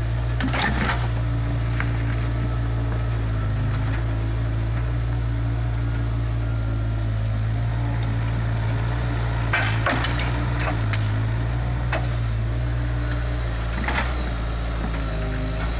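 Diesel engine of a CAT 305 CR mini excavator running steadily under working load as it loads soil onto a dump truck. Short metallic clanks and rattles come three times, about half a second in, near ten seconds and near fourteen seconds, from the steel bucket and the load striking the truck's bed.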